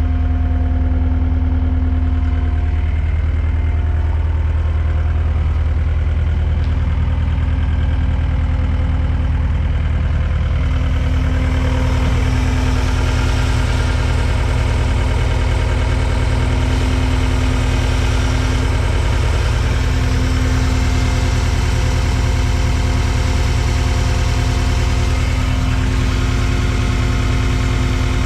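2008 Deere CT322 compact track skid steer's diesel engine running steadily. From about eleven seconds in, the sound gets brighter and busier.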